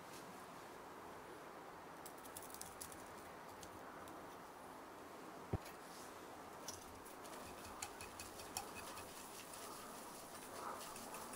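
Quiet kitchen handling sounds: faint scattered ticks and one sharp knock about five and a half seconds in, as crushed Oreo cookie crumbs go into a glass bowl. Near the end a wire whisk starts stirring the crumbs into the egg mixture in the glass bowl.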